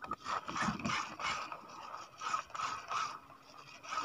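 Spinning reel being cranked to retrieve a lure, its gears whirring in a string of short bursts, about two a second, with a brief pause in the middle.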